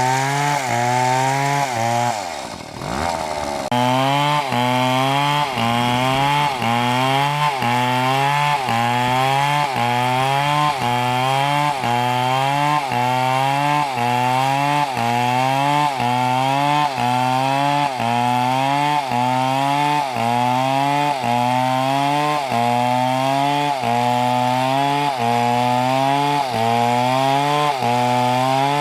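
Large two-stroke MS720 chainsaw cutting under load through a big tree trunk, its engine pitch dipping and recovering in an even rhythm about once a second. About two seconds in the saw briefly drops off, its pitch falling, then comes back into the cut.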